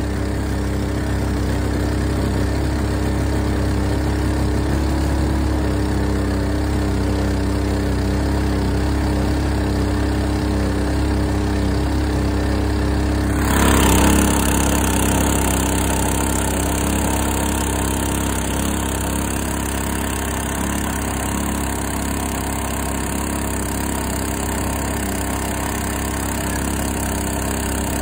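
Predator 212cc single-cylinder four-stroke engine on a long-tail mud motor, running steadily at a constant speed, pushing the boat along. About halfway through the sound suddenly turns brighter, with a hiss from the churning wake added.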